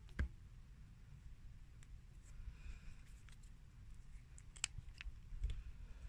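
Faint handling sounds of a small plastic inline fuel filter, with its spring hose clip and rubber fuel hose being worked off it: a few sharp clicks and light plastic scraping, the loudest click a little before the end.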